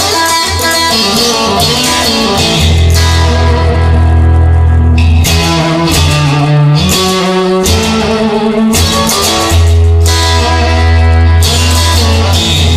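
Instrumental rock music led by guitar over a heavy, steady bass line.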